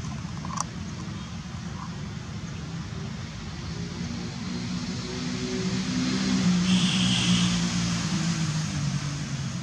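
A motor vehicle engine passing, over a steady low rumble; it grows louder to a peak about seven seconds in, then eases off. A single sharp click about half a second in.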